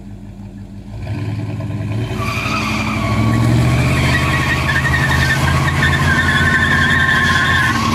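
Ford F-150 and Chevy K5 Blazer engines revving hard under load while chained together pulling in opposite directions, the engine note building about a second in. From about two seconds in, tyres squeal steadily as they spin on the pavement.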